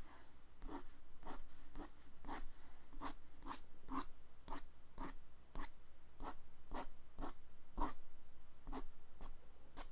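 Pen strokes scratching on paper: short hatching strokes repeated about twice a second.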